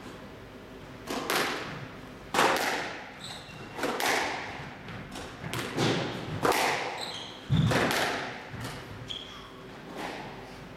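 Squash rally: the ball struck by rackets and hitting the court walls, a series of sharp echoing hits about every one to one and a half seconds, with a heavier thud a little past halfway.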